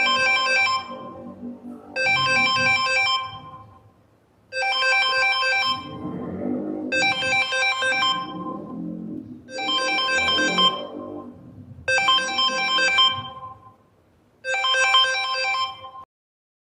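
Mobile phone ringtone: a short bright chime phrase repeating seven times, about every two and a half seconds, and stopping near the end.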